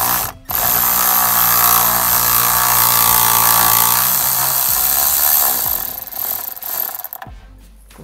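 Cordless electric ratchet backing out a steering-wheel airbag retaining bolt: a short burst, then about five seconds of steady motor whine that slows in pitch and dies away near the end.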